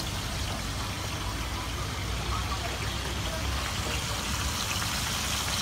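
Pork chitterlings deep-frying in a wok of hot oil, a steady sizzle and bubbling, over a low steady rumble.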